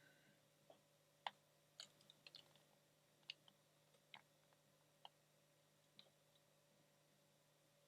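Near silence broken by about eight faint, irregular small clicks and taps from soldering work on a circuit board.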